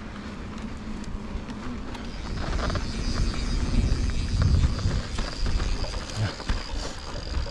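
Yeti SB150 mountain bike rolling along a dry dirt singletrack: tyre noise on the dirt with gusty wind rumble on the microphone, and short rattles from the bike over bumps. It gets louder about two seconds in, when a steady high thin whine joins it.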